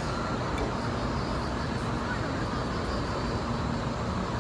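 Steady city background rumble of distant road traffic, with no distinct events.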